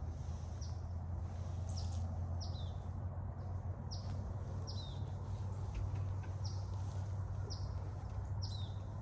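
A bird calling with short, high chirps that drop slightly in pitch, repeated roughly every half second to a second, over a steady low hum.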